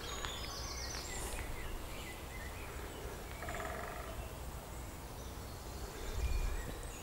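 Woodland ambience: faint distant birdsong, a few short high whistled notes and calls over a steady outdoor hiss, with a brief low rumble about six seconds in.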